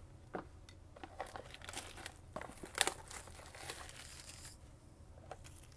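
Panini Mosaic trading-card pack wrapper being torn open and crinkled, a faint run of scattered crackles and small clicks with one louder rustle about three seconds in.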